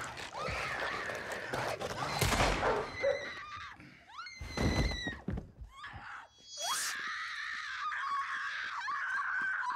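A woman screaming and wailing hysterically: long high-pitched cries with a waver and sudden rising shrieks, broken by a few heavy thuds of bodies and objects hitting around the room.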